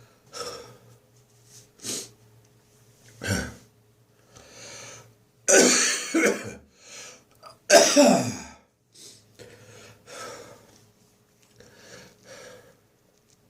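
A person's dry cough lingering after bronchitis, with the phlegm nearly gone: a string of short coughs, the two loudest around the middle, then softer ones near the end.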